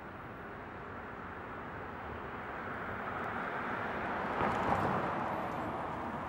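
A passing vehicle's noise, swelling to a peak about four and a half seconds in and then fading, with faint high bird chirps above it.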